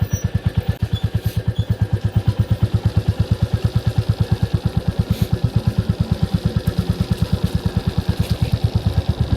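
Royal Enfield Classic 350's single-cylinder four-stroke engine running steadily at low revs, with an even thump of about eight beats a second.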